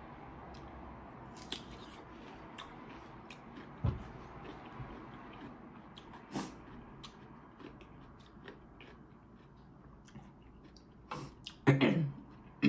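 Close-miked chewing and wet mouth clicks from eating seafood-boil food, with a few louder mouth sounds near the end.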